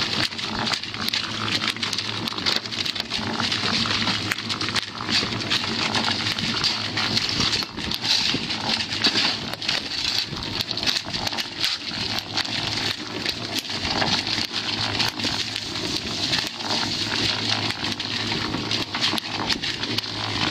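Concrete mixer running with its drum tipped, churning a dry, crumbly mix of slag, ash, sand and cement and spilling it out with a steady gritty rattle over a constant hum.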